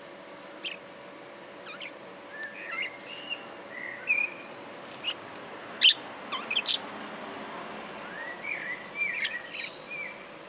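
Budgerigars chattering: short chirps and warbled notes scattered irregularly, with sharp clicks among them, the loudest click about six seconds in. A faint steady hum runs underneath.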